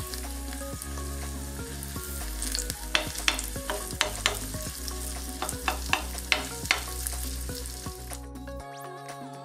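Grated potato hash brown mixture sizzling as it is spooned into hot oil in a frying pan, with sharp crackles of spitting oil between about three and seven seconds in. The sizzle cuts off near the end.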